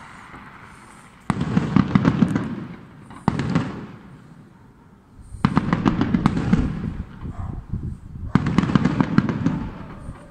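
Aerial fireworks shells bursting, in four loud volleys of bangs and crackling. The first volley comes about a second in, and quieter gaps fall between them.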